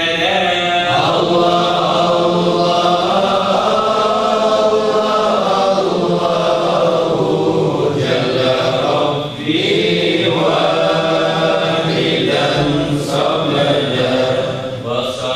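Group of men chanting a devotional chant together in unison, in long sung phrases, with a short break between phrases about nine seconds in.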